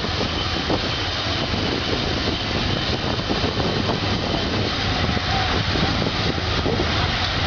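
Gas-turbine passenger train running past: a steady jet-like turbine whine over the rush and rumble of the train on the track.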